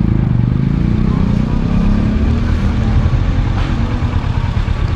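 Kawasaki Versys 650's parallel-twin engine running at low revs as the motorcycle rolls slowly, its note easing down over the first couple of seconds, then holding steady.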